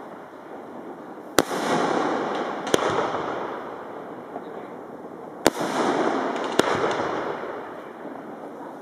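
Aerial firework shells bursting: four sharp bangs in two pairs, each followed by a long rolling rumble that fades away.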